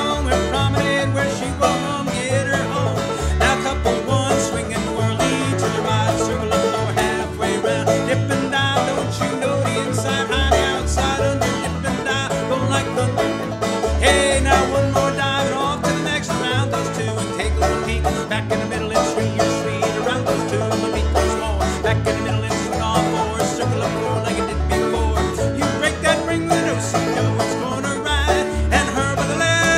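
Old-time string band playing an instrumental dance tune at a steady, driving pulse: fiddle and clawhammer banjo lead, backed by guitar and a steady low rhythm.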